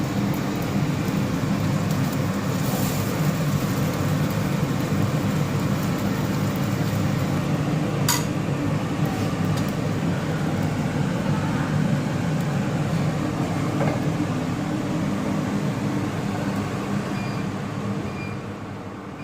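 Rice-stuffed green mussels shallow-frying in a little oil in a pan: a steady sizzle over a low rush, with one sharp clink about eight seconds in. The sound dies down over the last couple of seconds.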